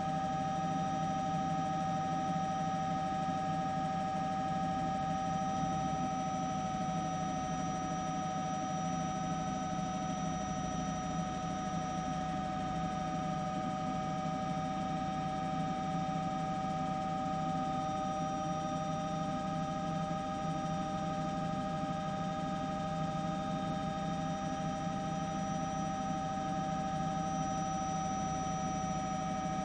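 Steady machine hum: a low drone with several constant whining tones above it, without breaks or changes.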